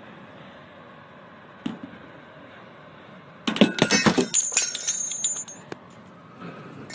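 A glass piece breaking about three and a half seconds in: a burst of cracks and clinks, then shards ringing and tinkling for about two seconds. A steady low hiss underneath.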